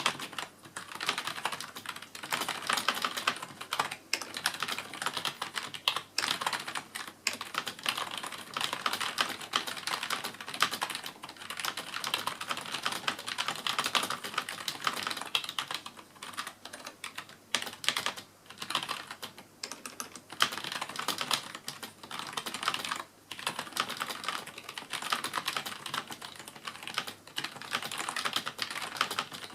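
CM Storm Devastator membrane gaming keyboard being typed on fast and without letup, a quick run of key clicks broken by a few short pauses.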